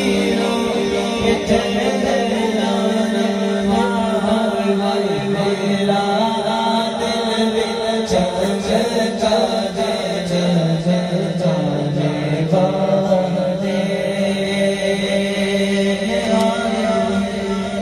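Two men singing a devotional Urdu naat through microphones in long drawn-out held notes, their voices sliding down and back up in pitch rather than moving through quick syllables.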